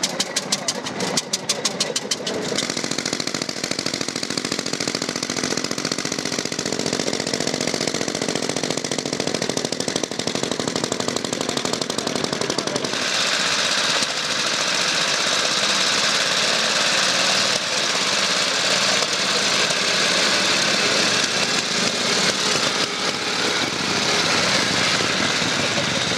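Veteran motorcycle engines running. First the 1897 Léon Bollée tricar's engine, firing in a rapid, even beat for the first couple of seconds. Then, about halfway through, a 1914 Harley-Davidson's engine, brighter and more hissing, as it is ridden away.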